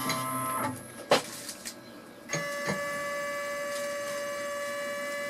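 CNC drive motors on a Boxford lathe's lead screw and cross slide whining steadily as they move the slides. The whine stops under a second in, a few clicks follow, and it starts again at a different pitch a little over two seconds in.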